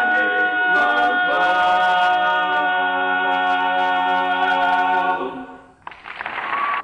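Male four-voice quartet singing a cappella, moving into a final chord that is held steady for about four seconds and cut off together. Applause breaks out about six seconds in.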